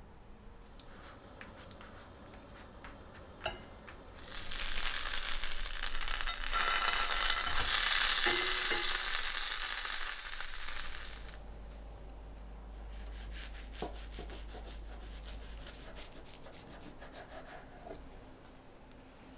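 Quesadilla sizzling in a frying pan: a steady sizzle that starts about four seconds in and dies away after about eleven seconds. Faint handling noises and a few small clicks come before and after it.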